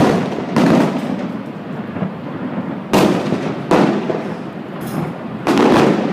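Aerial fireworks shells bursting in a display: about five sharp booms, one every half second to two seconds, each trailing off in a rumbling echo.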